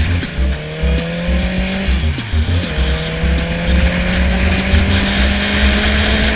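Honda CBR650F inline-four engine through a Two Brothers aftermarket exhaust, heard riding at highway speed. The note holds steady, dips briefly and comes back about two seconds in, then rises steadily as the bike accelerates.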